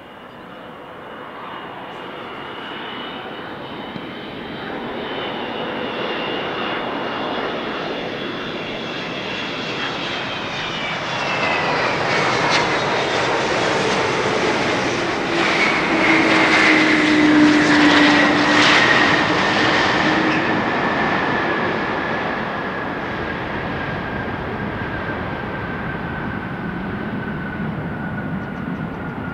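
Boeing 777-200 airliner's twin jet engines landing: the whine grows louder on approach and drops in pitch as the jet passes, reaching its loudest just after touchdown about halfway through, then easing off with a slowly falling whine during the rollout.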